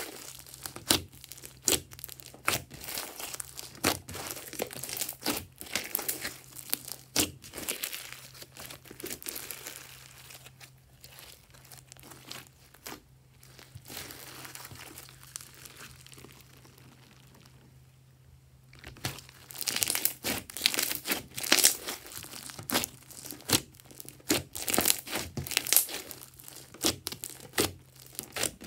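Crunchy foam-bead slime (floam) being squeezed, stretched and pressed by hand, the packed foam beads crackling and popping in dense runs of sharp clicks. The crackle thins and quiets for several seconds in the middle, then comes back loud and fast.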